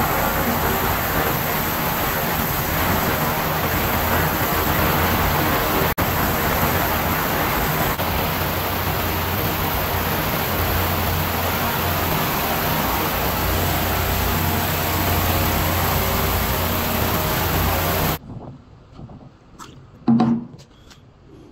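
Ultrasonic cleaning tank running, a steady loud hiss with a low electrical hum as the cavitating fluid scrubs a submerged wheel rim. About three seconds before the end the hiss cuts off suddenly, leaving quieter handling sounds and a single louder thud as the wet rim is taken out.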